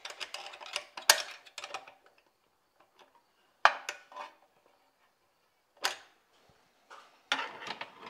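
Metal clinks and clacks of a steel heater-mounting bracket and hand tools as the bracket bolts are loosened and the heater is turned on its mount. There is a quick run of clicks with a sharp clack about a second in, single clacks at around four and six seconds, and a few more near the end.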